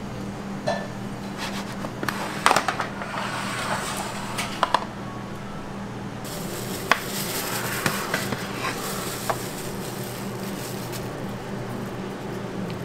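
Kitchen work sounds: scattered clinks and knocks of metal pizza pans and utensils being handled, the sharpest cluster about two and a half seconds in, over a steady low hum of kitchen equipment.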